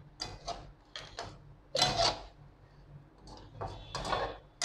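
Metal slotted spoon scraping and clinking against a metal karahi as chicken pieces are stirred through korma masala: irregular strokes, the longest and loudest about two seconds in.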